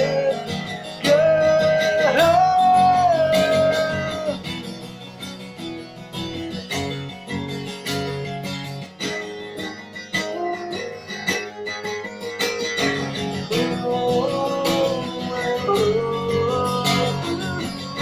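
A man singing with his own guitar accompaniment. A few long held sung notes open, then about eight seconds of guitar alone, then the singing comes back.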